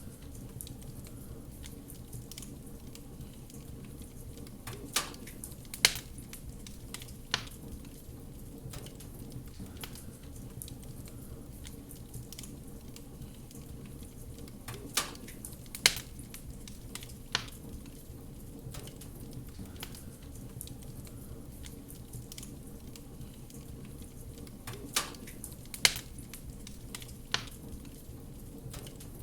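Wood fire crackling over a low steady rumble, with small snaps throughout and sharper pops in groups of three about every ten seconds.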